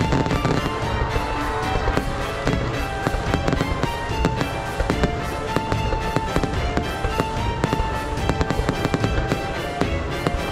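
Fireworks going off in a rapid, continuous stream of bangs and crackles, with a melodic music track playing beneath.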